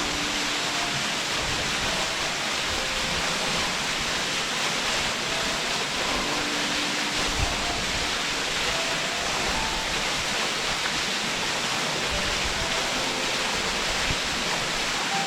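Furutaki waterfall: a steady rush of water falling into its plunge pool, with a few faint held notes of music over it.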